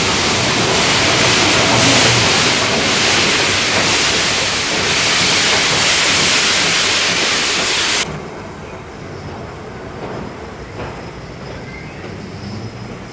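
Steam locomotive JNR C62 No. 2 standing in steam, with a loud, steady hiss of steam escaping around its cylinders. About eight seconds in, the hiss cuts off abruptly and only a much quieter low rumble remains.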